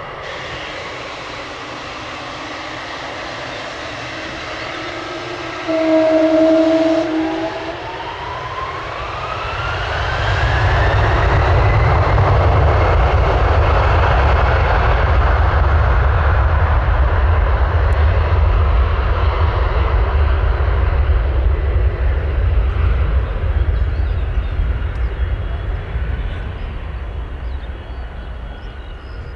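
Gulfstream G600 business jet's twin Pratt & Whitney PW815GA turbofans spooling up to takeoff thrust: a whine rising in pitch from about eight seconds in, then a loud rumble through the takeoff roll that fades near the end as the jet moves away. A brief loud steady tone sounds about six seconds in.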